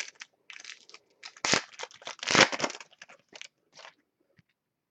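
Trading cards rustling and scraping against one another as they are handled and slid through the hands, in a run of short bursts that dies away about four seconds in.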